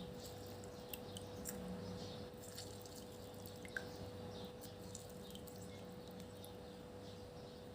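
Faint drips and small clicks of kitchen handling, with one sharper tick near the middle, over a steady low hum.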